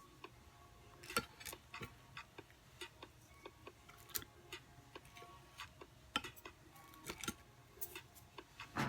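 Quiet, scattered light clicks and taps, irregularly spaced, over a faint low hum.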